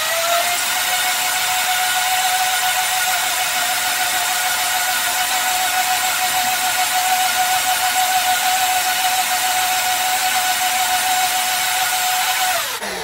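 Bullet-style personal blender's motor running at a steady high whine as it blends pancake batter, then winding down near the end.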